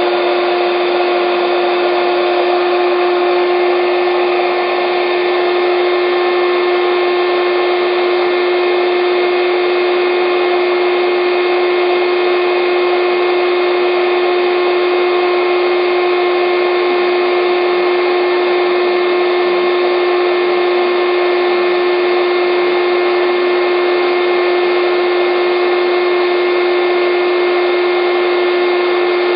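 Air bed's electric air pump running steadily: a constant motor hum over rushing air, its pitch and level not changing.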